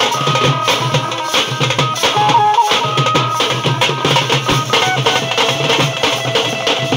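Live drum-band music: a two-headed barrel drum (dhol) and other drums are beaten in a dense, driving rhythm. Over the drums, a melody instrument plays held notes that step up and down.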